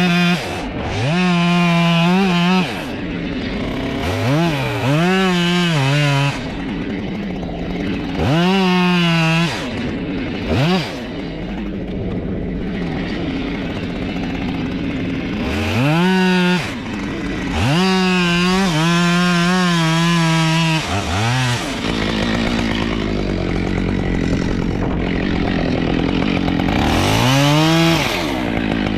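Small chainsaw revving up to full throttle again and again as it cuts wood, dropping back to idle between cuts. The pitch sags under load once or twice.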